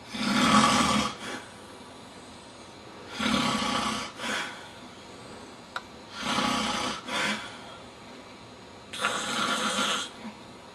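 A man snoring loudly in his sleep: four rough snores about three seconds apart, each about a second long and followed by a brief shorter snort.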